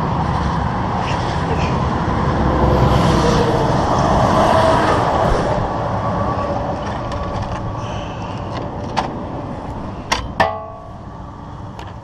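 Highway traffic going past at speed, a heavy vehicle swelling louder through the first few seconds and then fading away. Near the end come three sharp knocks, the last one ringing briefly.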